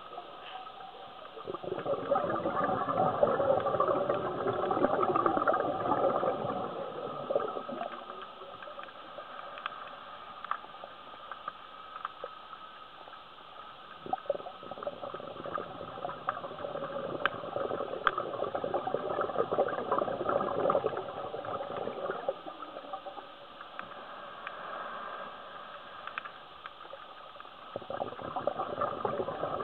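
Scuba diver's regulator exhaust bubbles rushing and crackling underwater, heard through the camera housing. Three long bursts, each several seconds, come with quieter stretches between them in a slow breathing rhythm.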